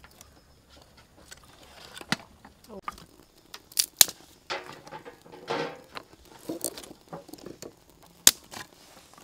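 Dry twigs rustling and snapping as they are pushed into a small wood fire in a clay stove, with a few sharp cracks; the loudest cracks come about four and eight seconds in.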